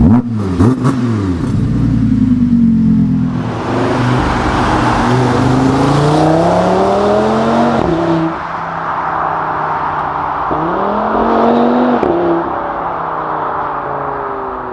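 Audi TT RS's turbocharged five-cylinder engine accelerating hard through the gears, heard from some distance away. Its note climbs steadily in pitch and falls sharply at upshifts about eight and twelve seconds in.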